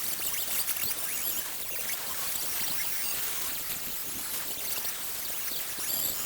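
MIG welder arc crackling and sizzling steadily as patch-panel sheet metal is welded into a car body.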